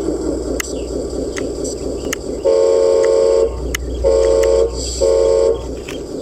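Train running with a steady rumble and occasional sharp clicks, sounding its horn three times: a blast of about a second some two and a half seconds in, then two shorter blasts.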